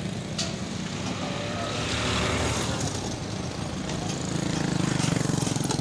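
An engine running steadily, growing louder about two seconds in and again near the end, with one sharp knock just after the start.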